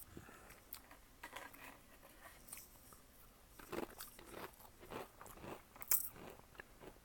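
A black cat crunching and chewing cheddar cheese Pringles, with irregular crisp cracks. The crunches come thickest in the second half, with the sharpest crack a little before the end.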